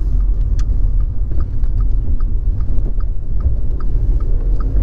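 Inside a car's cabin: steady low engine and road rumble while driving slowly on a wet road, with a light regular ticking about two or three times a second.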